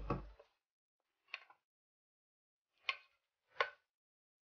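A ladle stirring cooked field beans in an open aluminium pressure cooker, knocking against the side of the pot three times in short, faint knocks.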